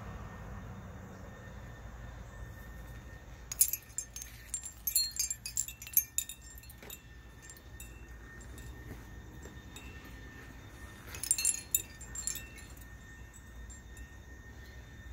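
Handmade glass wind chimes, glass rings and discs on copper wire, clinking against each other in a breeze: two flurries of bright, ringing glass strikes, one about three and a half seconds in and another near the eleven-second mark, with only a few scattered taps between.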